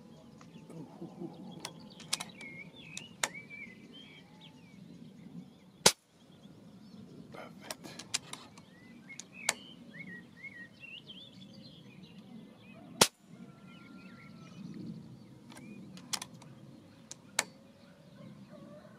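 Reximex Throne Gen2 PCP air rifle firing 33-grain slugs: two sharp shots about seven seconds apart, with several lighter clicks in between. Birds chirp in the background.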